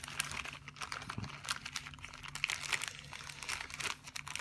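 Plastic parts bag crinkling and rustling as small electronic components are sorted through by hand, a string of short, irregular crackles.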